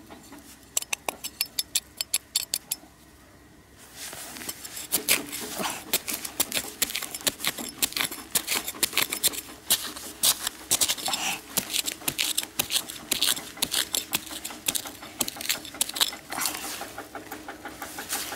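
Loose soil crumbling and pattering as gloved hands scrape and scoop dirt into a hole, a dense run of small gritty crackles and ticks, with a short lull about three seconds in.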